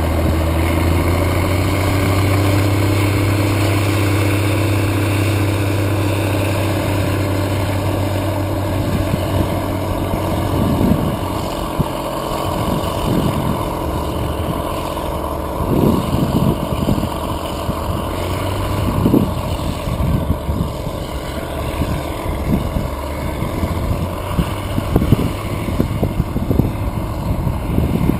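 Diesel engines of a Kirovets K-701 and a Rába 300 tractor running under load as the pair pull a disc harrow across the field. The steady engine drone weakens after about ten seconds as they move away, and irregular gusts of wind on the microphone take over.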